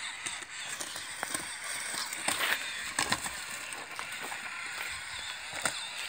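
Remote-control Terra Climber toy driving over dry leaves, twigs and rocks: its small electric motor running while its spiky wheels crunch and crackle through the leaf litter, with scattered clicks.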